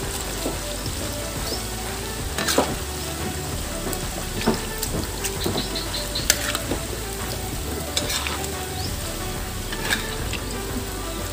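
Sliced tempe deep-frying in hot oil in a wok: a steady sizzle broken by scattered sharp pops and crackles as the pieces are stirred. This is the first frying, which firms the tempe before it is stir-fried.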